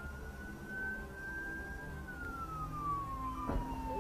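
Emergency vehicle siren wailing: one slow sweep, holding high and then falling steadily in pitch, over a low traffic rumble. A short thump about three and a half seconds in.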